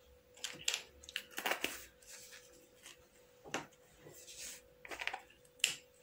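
Scattered quiet clicks, taps and rustles of a dye tub and spoon being handled, about ten in all, over a faint steady hum.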